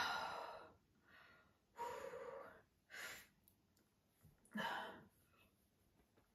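A woman breathing heavily: four separate breaths and sighs, the first the loudest, while she tries to burp after drinking Sprite, with no burp coming up.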